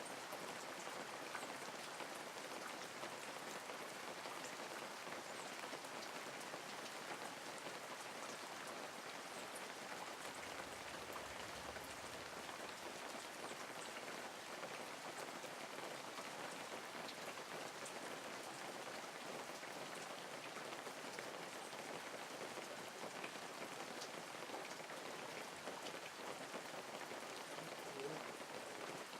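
Steady rain falling, a constant hiss of rain with many small scattered drop ticks.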